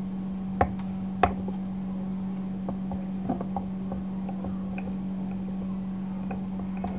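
Wooden rolling pin rolling bread on a wooden board, with two sharp knocks about half a second and just over a second in, then scattered faint taps. A steady hum runs underneath.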